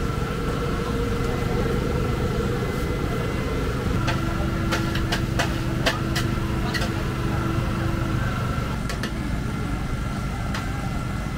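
Steady engine hum with a constant high tone above it, and a few sharp clicks and clatter about halfway through.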